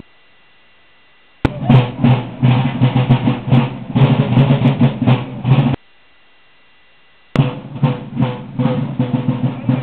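Parade drums of a folk march company playing a rhythmic street beat. The drumming breaks off twice into a second or so of near silence, then starts again abruptly.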